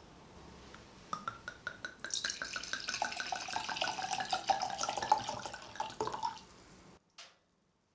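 Red wine poured from a bottle into a stemmed wine glass, a gurgling, glugging stream that starts about a second in and stops about six seconds in. A faint click follows a little later.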